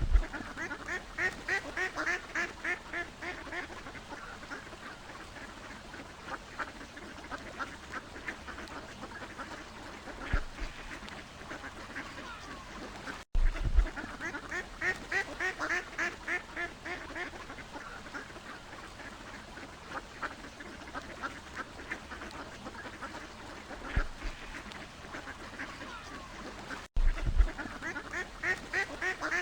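Ducks quacking, a rapid run of short calls over a background of more flock calling. The same stretch of recording starts over twice, each time after a brief dropout.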